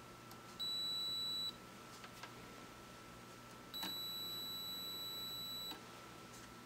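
Digital multimeter in continuity (beep) mode giving two steady high-pitched beeps, a short one about half a second in and a longer one of about two seconds near the middle. Each sounds as the probes make contact, signalling continuity between the probed points.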